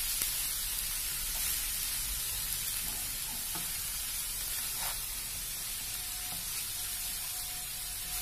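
Chopped onions and prawns sizzling in hot oil in a frying pan while being stirred with a spatula, with a few light knocks of the spatula against the pan.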